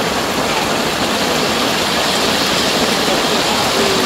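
Fish deep-frying in hot oil in a wok, sizzling and crackling steadily.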